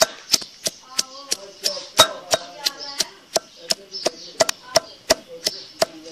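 Pestle pounding soaked chana dal and split urad dal in a stone mortar by hand, in steady strikes about three a second.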